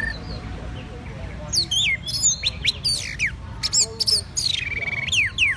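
Orange-headed thrush singing a rapid, varied run of loud whistled notes, mostly quick downward slurs with a short trill in the middle, starting about a second and a half in. This is the absorbed, trance-like song that Taiwanese bird keepers call 'da mang', rarely heard from this species.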